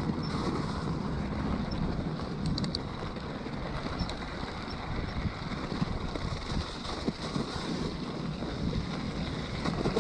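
Plus-size tyres of an electric mountain bike rolling over icy, snowy gravel, a steady rumble, with wind buffeting the microphone.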